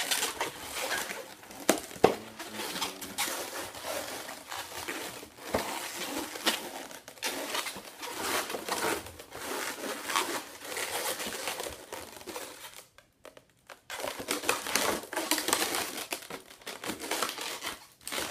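Latex 260 twisting balloons being handled and twisted by hand: irregular rubbing, squeaking and crinkling of the rubber, with a short lull about thirteen seconds in.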